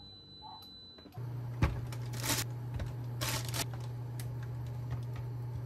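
Induction cooktop switching on about a second in and running with a steady low hum as the frying pans preheat. A sharp click follows, then two short rustling noises as rye bread slices are handled and laid in a square frying pan.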